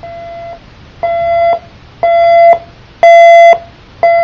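General Electric 7-4956B clock radio's alarm going off: a simple electronic beep of one steady pitch, about half a second long and repeating once a second. Each of the first four beeps is louder than the one before, and the fifth is softer.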